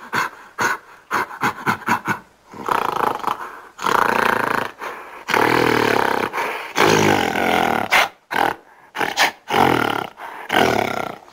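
Made-up creature calls for an extinct giant sloth lemur, built from gorilla and black bear recordings. Quick panting grunts give way to four long growling roars, then a run of short grunts.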